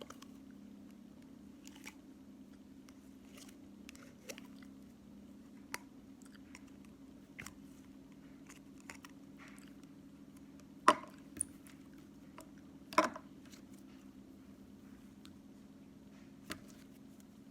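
Slime being squeezed and poked by hand, making scattered sticky clicks and pops, with two louder pops about two seconds apart past the middle. A faint steady hum runs underneath.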